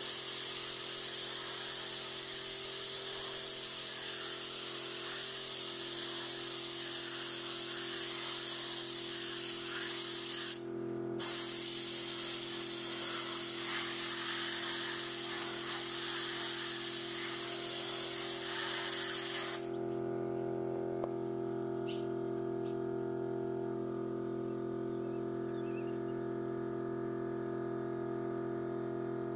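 Compressed-air paint spray gun hissing as it sprays paint, in two long steady bursts with a short break about ten seconds in, cutting off sharply about twenty seconds in. A steady hum with several tones runs underneath.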